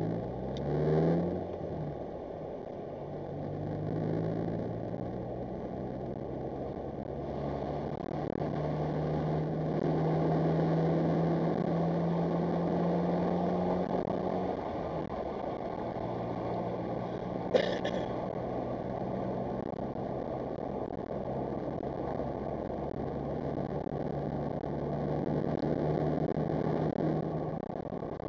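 Car engine and tyre noise heard from inside the moving car's cabin. The engine note climbs as the car accelerates near the start, then holds fairly steady, shifting in pitch with speed. There is one sharp click about two-thirds of the way through.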